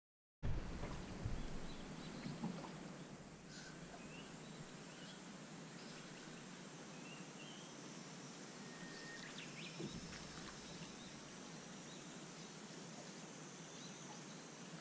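Outdoor ambience: a steady hiss with scattered bird chirps and a few light clicks and knocks, with a louder low rumble in the first couple of seconds.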